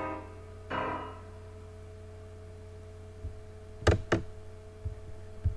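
Piano soundtrack music plays its last note about a second in and stops, leaving a steady low hum. Near the end come two sharp clicks in quick succession and a couple of soft low thumps.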